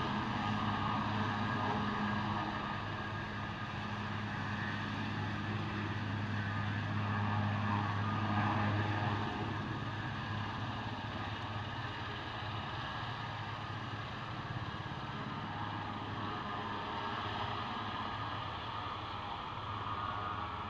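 Aérospatiale Super Puma twin-turbine helicopter taxiing, its engines and main rotor running: a steady low hum under a turbine rush. It grows a little quieter after about nine seconds.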